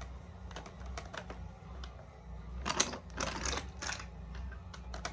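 Wooden toy train and track pieces clicking and clattering as they are handled and pushed, with two short scraping noises about three seconds in.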